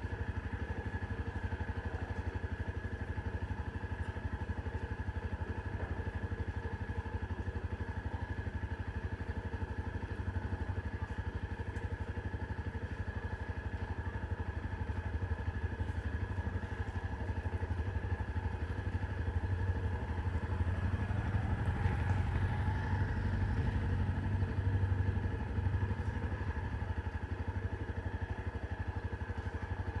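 Engine running with a steady, multi-toned hum and low rumble. The rumble grows louder for several seconds about two-thirds of the way through, as a motor vehicle passes.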